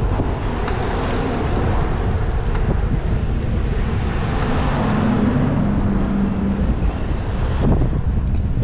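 Wind buffeting the microphone on a moving bicycle, with road traffic passing close alongside. A passing lorry's engine drones steadily for a couple of seconds about halfway through.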